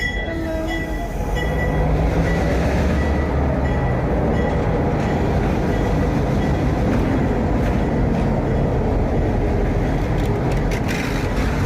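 A train running close by: a steady, loud rumble of engine and wheels on the rails, swelling about a second and a half in.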